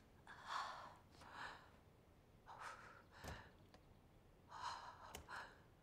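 A man breathing heavily in slow, sighing breaths, in and out in pairs about once a second, with two faint clicks in between.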